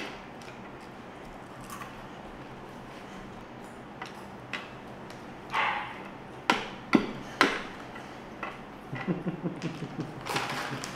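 Wooden chess pieces being set down and knocked on a wooden chessboard: a handful of sharp clicks, three of them close together in the middle, with softer taps around them.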